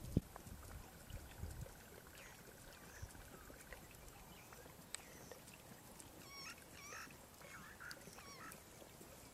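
Quiet evening waterhole ambience. A soft low thump comes near the start and a faint trill runs through the first few seconds; in the second half, birds give a run of short, warbling calls.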